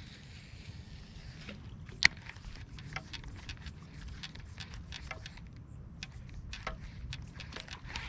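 Baitcasting reel being cranked after a cast: a sharp click about two seconds in, then light irregular ticking of the reel over a low rumble.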